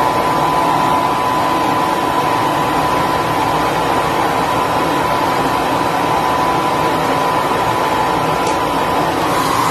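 Hair dryer running steadily: a continuous rush of blown air with a steady motor whine.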